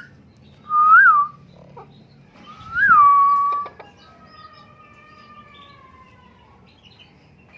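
A parrot whistling twice with a rise-and-fall whistle. The second whistle is longer and ends in a held, level note. Fainter, slowly falling whistles and small chirps follow.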